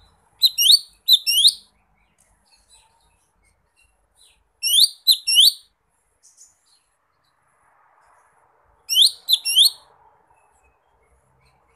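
Cucak ijo mini (a small leafbird) giving three bouts of sharp chirping calls, each a quick run of three or four notes lasting about a second, spaced roughly four seconds apart. These are its typical calls to challenge a rival.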